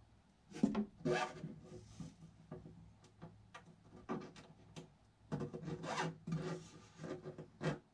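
The textured black top panel of a YakAttack BlackPak crate scraping and rubbing against the box's edges as it is worked into place by hand. The scrapes come irregularly, grouped about a second in and again over the last three seconds, with lighter rubs in between.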